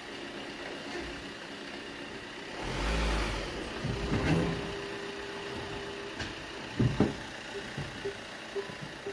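Van engine revving as the van pulls forward to drive over a stainless steel flexi tap connector, with the engine surging about three seconds in. Sharp knocks follow around the middle, and a pair of knocks comes near the seven-second mark.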